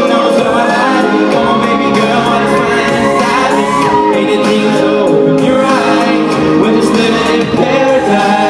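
Live pop song performed on stage: amplified music with a sung vocal line through handheld microphones.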